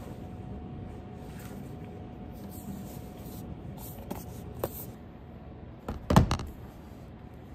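Handling noises and a couple of light clicks, then a laptop set down on a desk with a short cluster of knocks about six seconds in.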